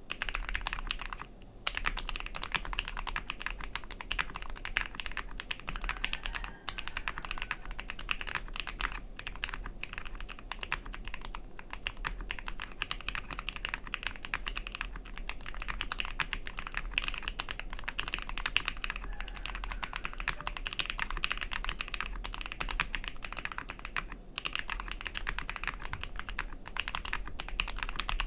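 Continuous fast typing on an Ikki68 Aurora mechanical keyboard with Gateron CJ linear switches: a dense stream of keystroke clacks, broken by a few short pauses.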